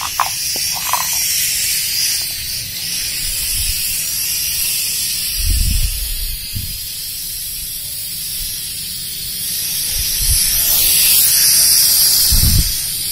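Toy quadcopter drone's propellers whirring in flight, a steady high hiss that grows louder near the end as the drone comes close. Brief low thumps about halfway and near the end.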